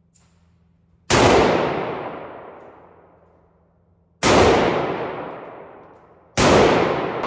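Three single pistol shots, about three and two seconds apart, each followed by a long echoing decay.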